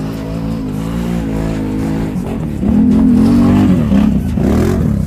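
Quad bike (ATV) engine working hard on a steep muddy climb, running steadily at first, then louder and revving up and down from about halfway in.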